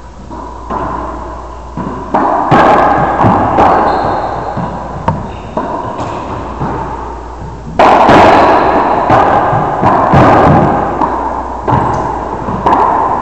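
Racquetball rally: the ball cracking off racquet strings and smacking the walls of the enclosed court, about a dozen sharp hits at uneven intervals, each followed by a long echo that dies away slowly.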